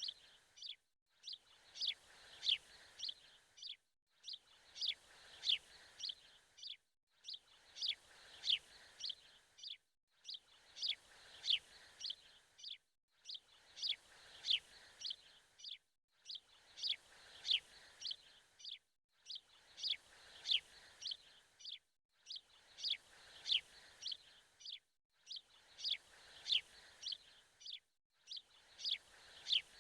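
Looped recording of birdsong: the same burst of quick, high, downward-sweeping chirps repeats about every three seconds, with a brief silence between repeats.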